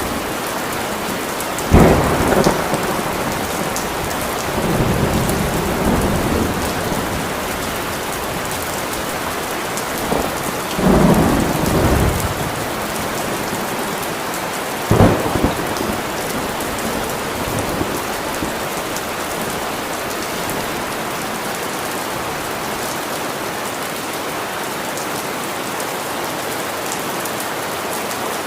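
Steady rain falling, with thunder crashing and rumbling several times: a sharp crack about two seconds in, longer rumbles around the fifth and eleventh seconds, and another crack near the middle. After that only the rain continues.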